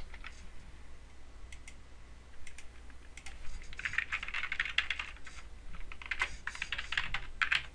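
Typing on a computer keyboard while a user name and password are entered: a few scattered keystrokes at first, then a run of quick typing from about three and a half seconds in.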